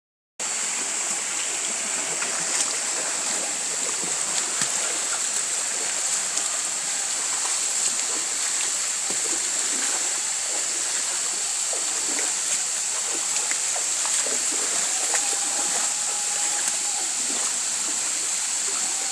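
Waterfall pouring and splashing: a steady rushing noise that does not let up, with a high, even hiss over it.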